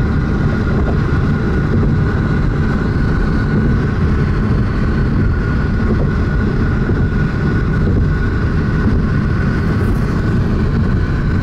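Steady road and engine noise inside a moving car: a low rumble with a faint, steady whine above it.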